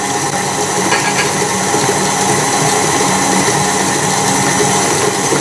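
KitchenAid stand mixer running steadily, its beater churning cake batter in a stainless steel bowl.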